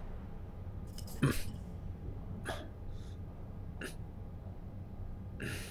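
A few short, soft breaths from people standing close together, over a low steady hum; the strongest comes about a second in.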